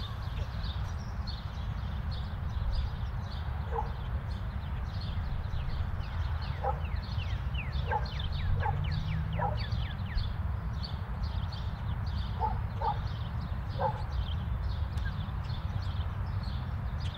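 Woodland birdsong: many birds chirping, with a quick run of falling whistled notes partway through. Under it is a steady low rumble, and a few short, lower calls, some of them doubled, come at intervals.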